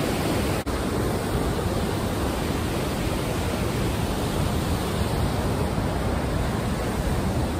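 Steady, loud rush of whitewater river rapids tumbling over rock, with a momentary dip in level a little over half a second in.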